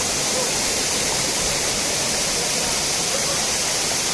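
Fast, shallow stream water rushing and splashing over rocks in a steady, loud rush.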